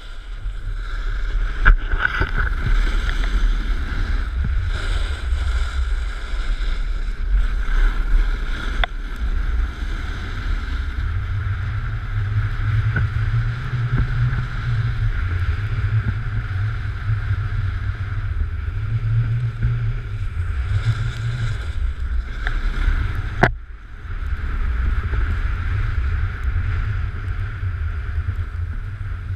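Wind buffeting a pole-mounted action camera's microphone as a snowboard slides and scrapes over the snow in a steady descent. The rumble and hiss let up briefly with a click late on.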